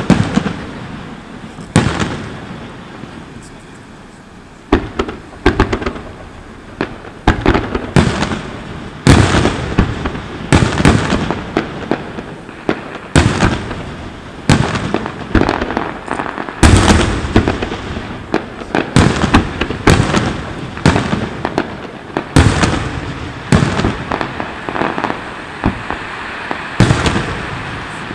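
A fireworks display: aerial shells bursting one after another with booming bangs that echo, sparser for the first few seconds and then coming fast, often several a second, with crackling between the bursts.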